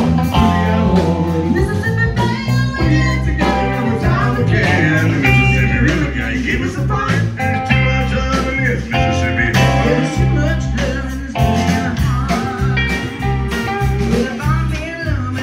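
Live country music: a man and a woman singing a duet to acoustic guitar over a backing band with bass and a steady beat.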